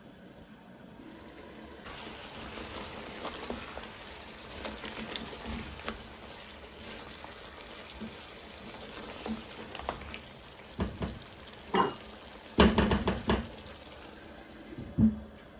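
Chicken nihari sizzling in a pan while a wooden spatula stirs and scrapes it, with a run of louder scrapes and knocks about two-thirds of the way through. Near the end the glass lid knocks against the pan as it goes back on.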